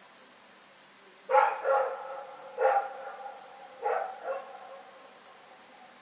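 A dog barking: five short barks in three groups, starting about a second in (two quick barks, a single one, then two more), then quiet.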